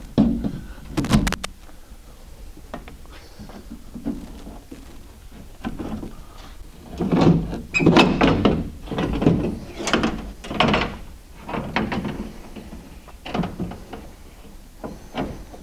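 A car door glass with metal brackets glued on, knocking and scraping against the inside of the steel door shell as it is worked down into the door. There are a couple of sharp knocks about a second in, then a busy run of knocks and scrapes midway, and lighter ones near the end.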